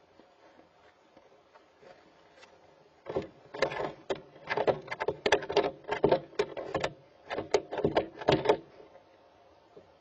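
Young barn owl flapping and scrambling inside its wooden nest box: a rapid, irregular run of wing and talon knocks and scrapes against the box for about five seconds.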